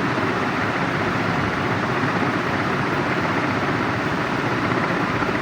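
Steady, unbroken mechanical hum.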